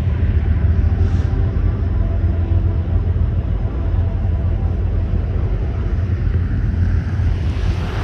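Freight train passing at a distance: a steady low rumble of the cars rolling on the rails, with faint steady tones in the first few seconds.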